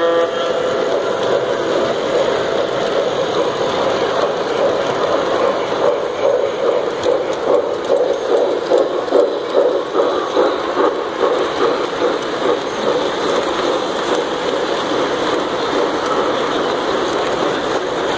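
Model trains running past on a layout: a steady motor hum and rolling wheel rattle, pulsing rhythmically through the middle stretch.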